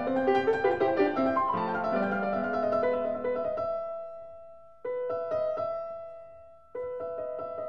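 Solo piano background music in a slow, relaxing classical style. It fades out on a held chord, then fresh chords are struck about five seconds in and again nearly two seconds later.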